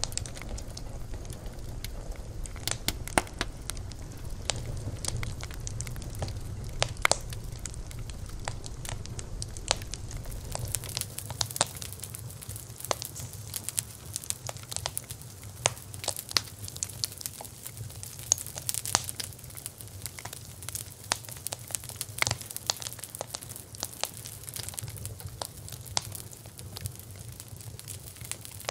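Wood fire crackling, with irregular sharp pops and snaps over a low steady rumble. About ten seconds in, the rumble thins and the crackles sound brighter.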